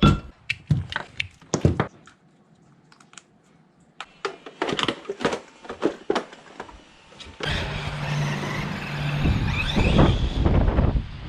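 Scattered clicks and knocks of hands working on the Traxxas E-Revo 2.0 electric RC truck. From about seven and a half seconds in, the truck's motor runs with a steady hum and rising whines under a rush of wind noise.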